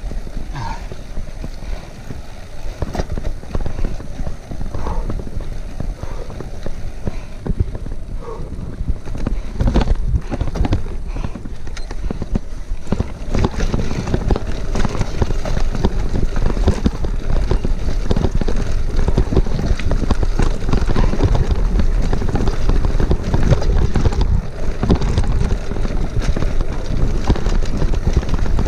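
Specialized Diverge gravel bike rolling along a dirt track and then over cobblestones: steady tyre rumble and a continuous rattle of the bike and its handlebar bag, with wind buffeting the mic. The rattling grows louder and denser about halfway through, once the wheels are on the cobbles.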